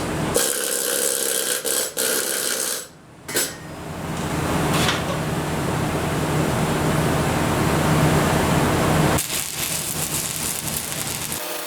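Stick welding arc burning a 7018 1/8-inch electrode at about 120 amps, laying the first pass into a preheated joint: a steady noisy hiss with a low hum underneath. The arc sound breaks off briefly about three seconds in, and the low hum drops out near the end.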